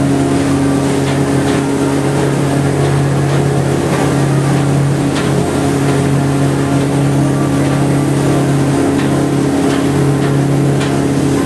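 Ferry boat's engine running steadily underway: a low, even drone.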